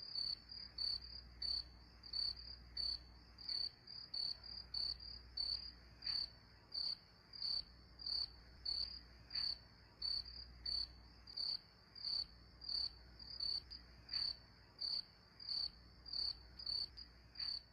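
Cricket chirping steadily, short high chirps evenly repeated at about three a second.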